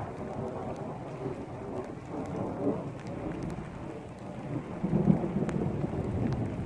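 Thunder rumbling through steady rain, the rumble swelling louder about five seconds in, with scattered raindrop ticks.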